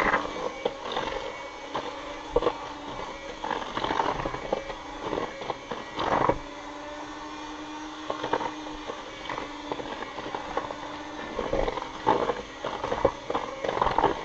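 Electric hand mixer running in a plastic bowl, creaming butter and sugar: a steady motor hum with the beaters knocking and clattering irregularly against the bowl.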